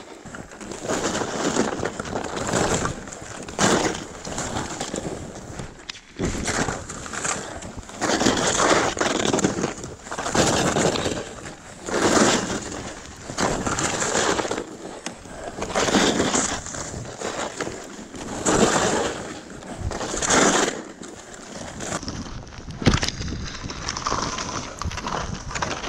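Skis carving and swishing through soft snow on a downhill run, in swells roughly every two seconds, one per turn.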